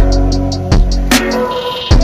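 Background music with a steady beat: drum hits and ticking hi-hats over a deep bass line.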